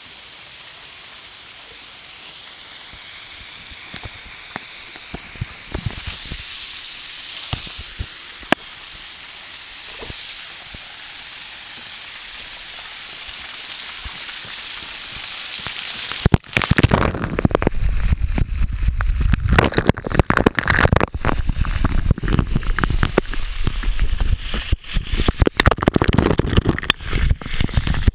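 Waterfall rushing, growing steadily louder as it is approached, with a few scattered sharp clicks. About halfway through it turns suddenly loud and buffeting with a heavy rumble as the falling water pours directly onto the camera.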